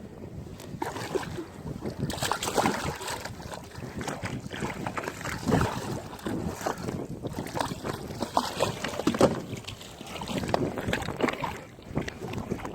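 Water slapping and sloshing irregularly against a small inflatable boat, with wind buffeting the microphone.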